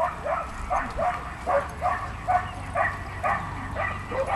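A dog yipping over and over, about three short yips a second, each rising in pitch.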